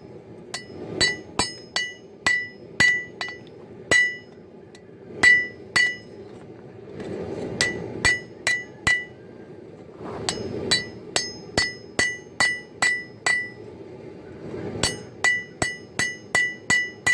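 Hand hammer striking a hot Damascus billet on an anvil in light blows to even it out, each blow ringing with a bright metallic note. The blows come in irregular runs of several a second with short pauses between them, over a steady low rush.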